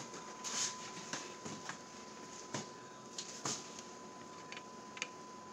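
Light clicks and knocks from a plastic vegetable-oil jug being handled over a frying pan on the stove, a handful of sharp taps scattered irregularly, the last about five seconds in.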